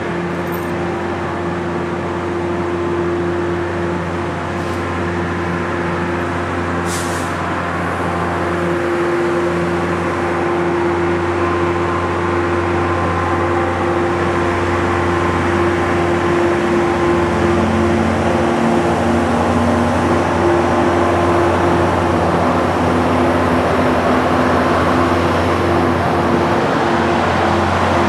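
Metro-North diesel push-pull test train rolling slowly over a grade crossing: the coaches' wheels running on the rails over the steady hum of the Brookville BL20GHM diesel locomotive pushing at the rear, which grows louder as the locomotive draws near. A short sharp clack about seven seconds in.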